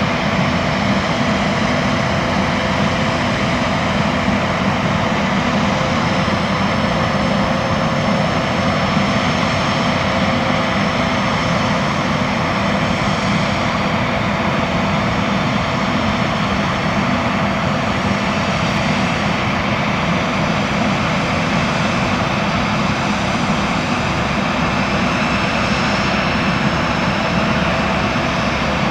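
A Boeing 767 on the ground with its turbines running: a steady whine over a low rumble.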